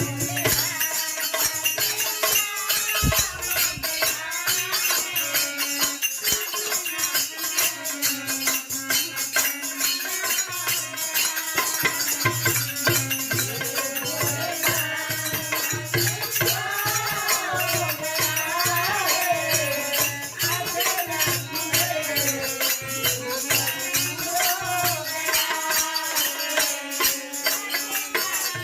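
Devotional bhajan-kirtan music: a voice singing a bending melody over continuous rattling, shaker-like percussion and a steady low drum beat.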